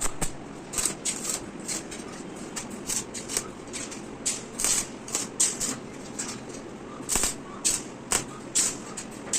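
Irregular series of short, hissy scraping strokes, about two or three a second, over a steady background noise, typical of hand work such as filing, sanding or brushing on metal.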